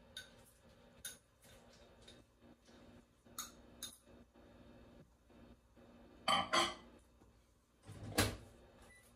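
Dishes and utensils being knocked and set down: scattered light clinks in the first few seconds, a louder double clatter about six seconds in, and a heavy thump about two seconds later.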